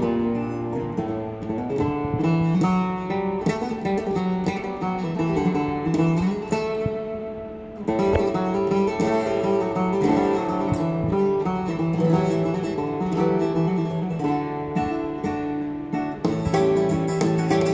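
Recorded guitar music playing through a pair of small wooden whiskey-box speakers driven by an Amps & Sound Mogwai tube amplifier. It dips briefly about seven seconds in, then carries on.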